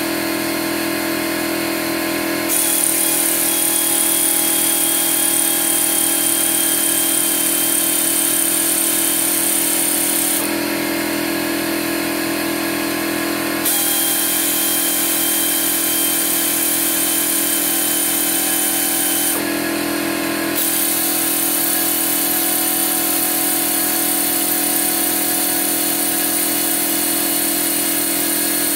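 Pneumatic air ratchet on an air hose running in long spells of several seconds, a hissing whine that starts about two seconds in and pauses briefly around a third and two-thirds of the way through, as it backs out the rocker box bolts on a Harley Evo engine. A steady mechanical hum runs underneath throughout.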